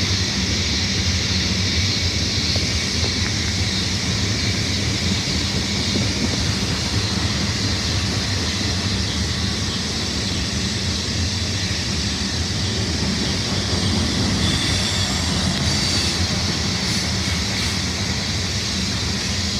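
Coal train's cars rolling steadily past on the rails: a continuous rumble with a high rushing noise from the wheels on the track.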